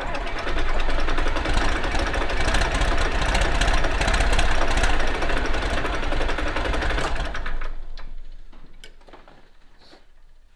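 John Deere 4430's freshly rebuilt six-cylinder turbo diesel being cranked over by its starter in a rapid steady rhythm, trying to fire but not catching. The cranking stops about eight seconds in and winds down, leaving a few faint clicks.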